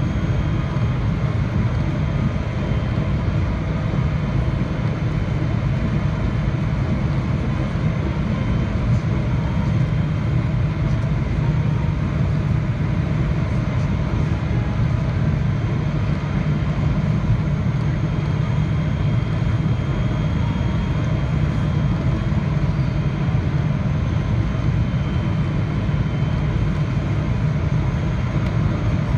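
Steady low rumble of a Boeing 777-300ER's engines and airflow on final approach, heard inside the cabin by the wing, with a faint high whine over it.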